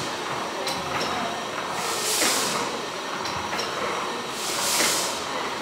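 Single-cylinder Corliss mill engine by Douglas & Grant running slowly. A hiss of exhaust swells about every two and a half seconds, and between the hisses come pairs of sharp clicks from the valve gear.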